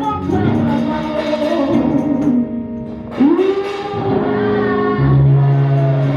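Gospel music: voices singing over instrumental backing, with a held sung note that slides upward about three seconds in.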